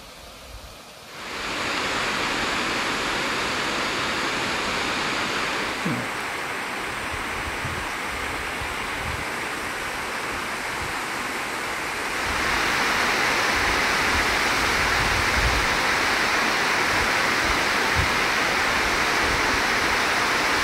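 Steady rushing noise, with no clear pitch, that comes in about a second in and shifts in level about 6 and 12 seconds in, with scattered low thumps underneath.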